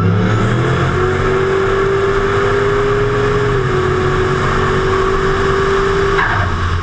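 A turbocharged Chevrolet Silverado and a 2003 Mustang Cobra accelerating hard side by side, engines at full throttle over loud wind rush. Their pitch rises over the first second, then a steady whine holds, dipping slightly midway. The sound cuts off abruptly at the end.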